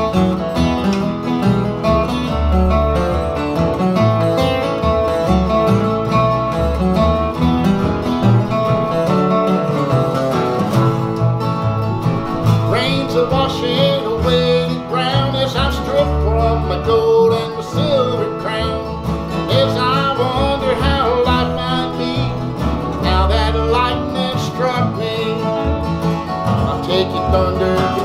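Instrumental break of a country song played live by a small acoustic band: two acoustic guitars strumming over an upright bass. About halfway through an electric guitar takes a lead with bent notes.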